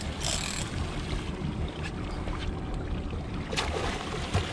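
Steady low rumble of a sportfishing boat's engine running, under wind and water noise, with a couple of sharp knocks near the end.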